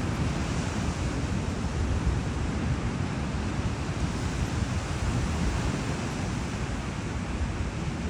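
Steady wash of ocean surf, with wind buffeting the microphone in a low rumble.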